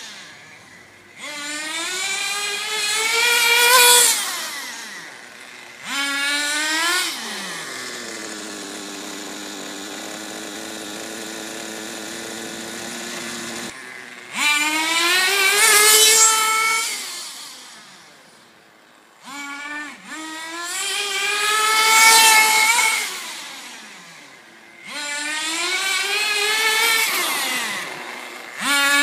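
Team Infinity .21 nitro engine in a 1/10 HSP buggy with a single-speed gearbox, running hard in about five throttle runs. Each time its high-pitched whine rises steeply as the buggy accelerates, then falls away. In the middle it idles steadily for several seconds.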